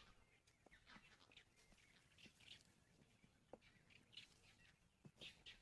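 Near silence: faint outdoor ambience with scattered soft clicks and a few brief, high chirps.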